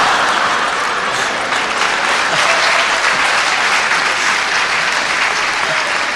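Live audience applauding steadily after a punchline, easing off slightly near the end.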